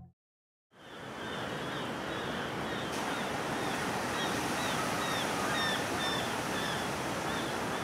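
Steady wash of ocean surf, starting about a second in, with many short high chirping calls repeating over it.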